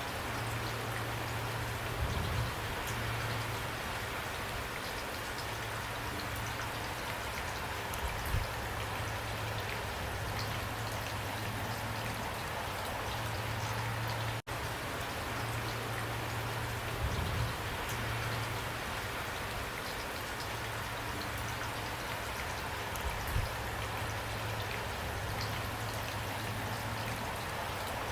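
Steady rain falling, an even hiss of drops, with a few soft low thuds and a momentary drop-out about halfway through.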